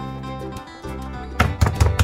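Acoustic guitar music; about one and a half seconds in, a metal meat mallet starts pounding raw steaks on a wooden cutting board in a rapid run of sharp strikes.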